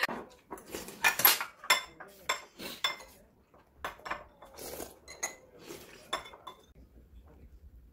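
Metal spoons clinking against ceramic and glass bowls during a meal: a quick run of sharp, ringing clinks that thins out about six and a half seconds in.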